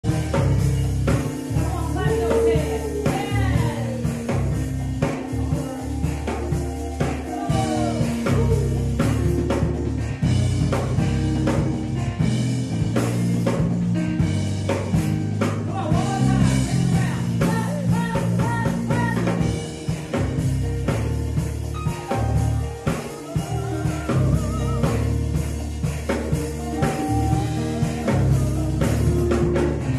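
Upbeat gospel music with drums and keyboard and a woman singing lead, her voice sliding through runs and held notes over a steady beat.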